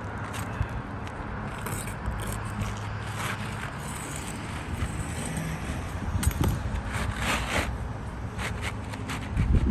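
Scraping, crackling and clicking of old, brittle 3-tab asphalt shingles being handled and pulled apart, over a steady low rumble, with a heavier knock near the end.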